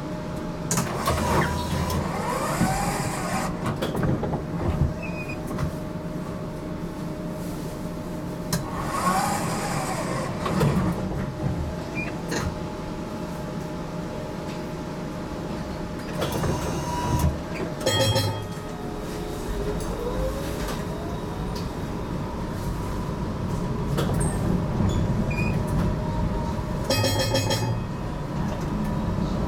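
GTL8 articulated tram running along its track: a steady rumble of wheels on rails, with wheel squeal twice, near the start and about nine seconds in. About twenty seconds in, a rising whine comes in as it picks up speed, and twice there is a short rapid rattle.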